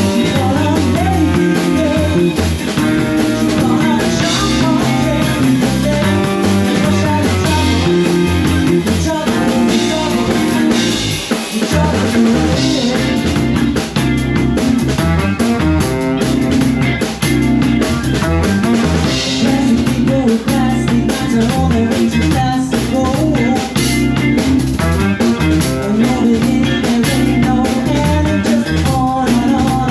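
A live band playing with a steady beat: drum kit, electric bass, electric guitar and saxophone, with a woman singing.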